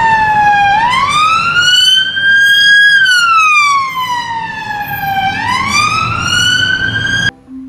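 Police car siren wailing: a slow tone that falls, rises, falls and rises again, each sweep taking about two seconds, over a low rumble. It cuts off suddenly near the end.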